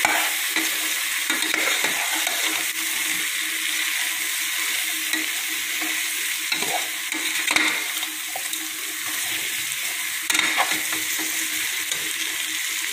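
Mixed vegetables and spice powder sizzling in hot oil in a pressure cooker while a perforated metal ladle stirs them, with scattered scrapes and light knocks of the ladle against the pot.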